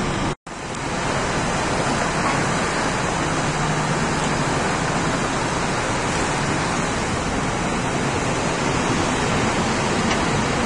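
Steady rushing noise of wind buffeting the microphone, with a brief dropout about half a second in.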